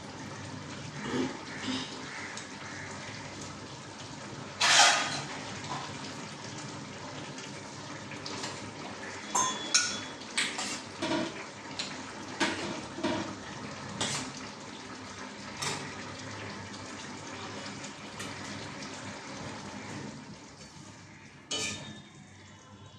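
Metal kitchen utensils and dishes clinking and clattering over a steady watery hiss. The loudest clatter comes about five seconds in, a run of clinks falls between about nine and fourteen seconds, and there is one more clatter near the end.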